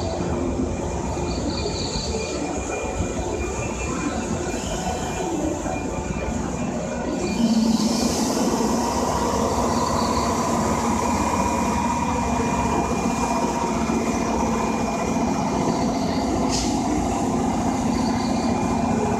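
JR West 103 series electric train running slowly along a station platform: a continuous rumble of wheels on rails with steady humming and whining tones, growing louder about seven seconds in.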